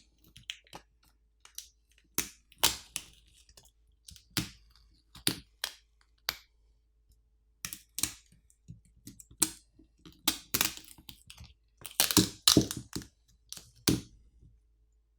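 Irregular clicks, taps and knocks of a power bank's hard plastic housing and internal parts being handled and taken apart, with a denser run of them near the end.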